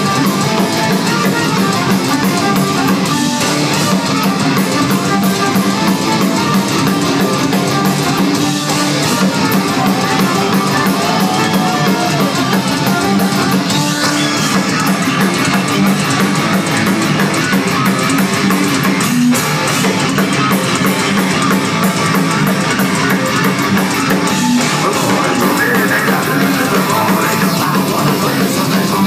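Folk metal band playing live and loud: distorted guitars, bass and drums with a fiddle.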